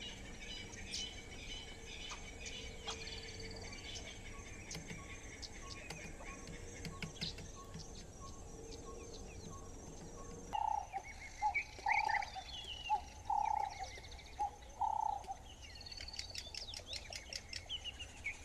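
Wild birds chirping and twittering. About halfway through, a run of about eight short, lower-pitched calls repeats over a couple of seconds, alongside more high twittering.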